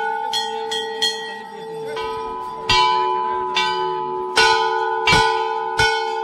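Metal temple bells being struck again and again at uneven intervals, about nine strokes. Each stroke rings on, so bells of several pitches overlap in a sustained ringing.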